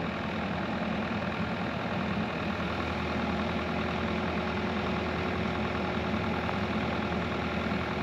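Excavator engine idling steadily, a continuous low rumble with no change in speed.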